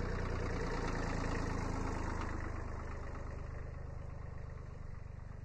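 Kubota B7100 HST compact tractor's three-cylinder diesel engine running steadily at a constant speed, slowly growing fainter.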